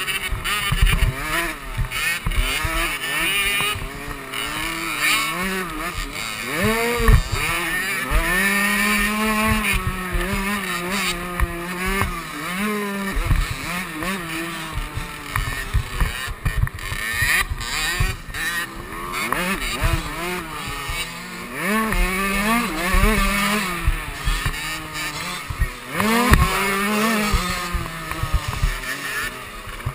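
KTM 65 two-stroke dirt bike engine revving hard, its pitch climbing and dropping again and again through gear changes and throttle cuts, with wind rumble on the helmet camera's microphone.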